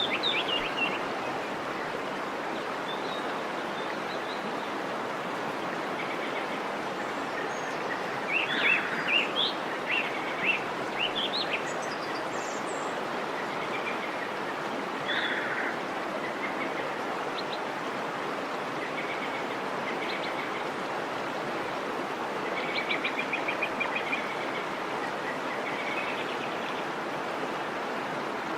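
Waterfall rushing steadily, with small birds chirping in short bursts now and then over it.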